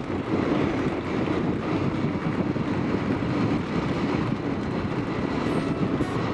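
Motorcycle running at road speed: a steady rumble of engine and rushing wind on the microphone.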